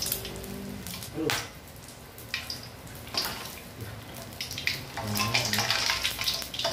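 Hot oil sizzling in a wok around whole eggs in their shells, with sharp spattering pops now and then; the crackle grows denser and louder about five seconds in, as the eggs are turned with a metal spoon.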